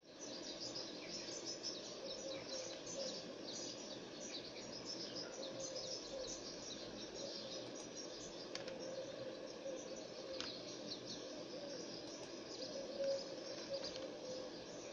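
Small birds chirping in the background: many short, irregular high calls overlapping throughout, over a steady low hum.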